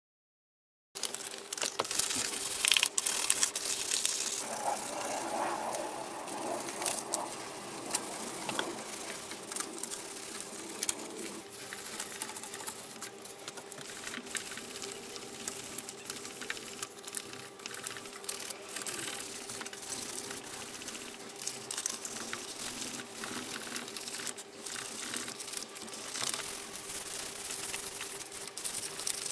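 A hand rubbing and scuffing over the hull of a 1/10-scale BTR-80 model on newspaper. It makes a scratchy rubbing with many small clicks and paper crinkles, starting about a second in, under a faint steady hum.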